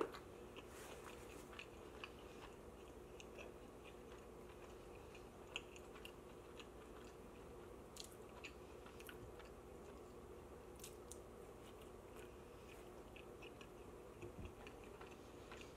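Close-up chewing of pizza: faint, soft chewing clicks at an uneven pace, over a faint steady hum.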